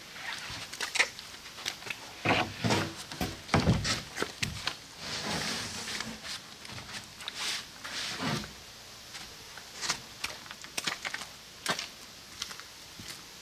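Plywood sheets being slid off a stack on a trailer and handled: irregular wooden scraping, knocks and thumps, with a few longer sliding scrapes in the middle.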